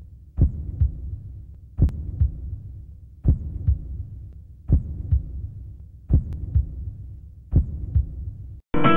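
Slow heartbeat sound effect: six low lub-dub double thumps, about one every second and a half.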